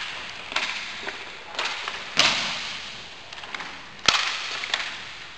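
Roller hockey play: a run of sharp cracks and knocks from sticks striking and hitting the boards. The loudest come about two seconds in and about four seconds in, each ringing on briefly, over a steady hiss.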